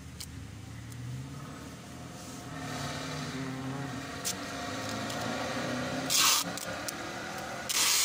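A motor vehicle's engine running nearby, its hum growing louder a couple of seconds in. Two short, loud rasping noises cut across it, one about six seconds in and another near the end.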